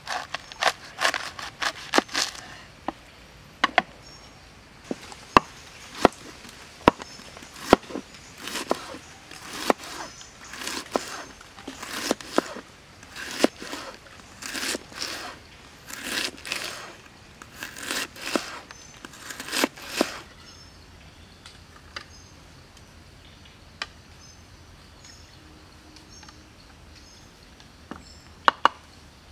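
A knife cutting red cabbage on a wooden board: a quick run of cutting strokes and sharp knocks that stops about twenty seconds in.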